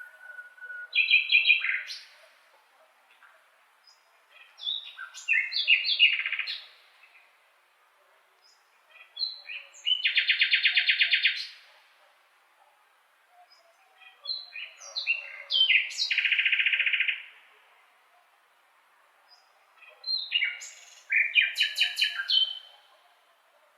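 A blackbird singing: five separate song phrases about five seconds apart. Each phrase is a quick run of short notes, and most end in a fast, buzzy trill.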